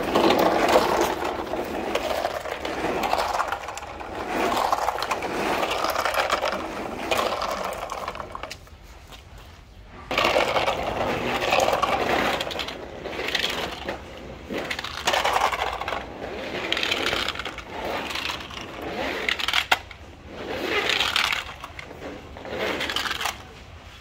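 Hard plastic toy trucks rolling and scraping over rough concrete and dirt, a rattling clatter in pushes of one to three seconds, with a few sharp plastic clacks.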